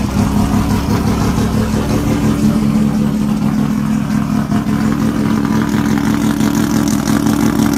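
Turbocharged Mazda RX-7 rotary engine idling loud and choppy, a steady rapid ratatata.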